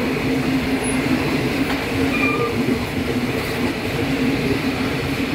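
Loaded magnetite ore wagons of a freight train rolling past, a steady rumble of steel wheels on rail.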